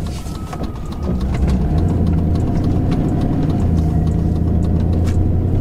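Pickup truck engine and road noise heard inside the cab while driving: a steady low drone that grows louder about a second and a half in and then holds.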